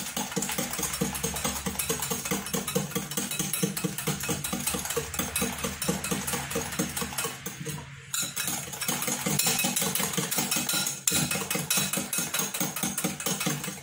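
Hand wire whisk beating egg and sugar batter in a glass bowl, fast even strokes of the wires against the glass. The oil is being added little by little as it is beaten in. There is a brief pause about eight seconds in.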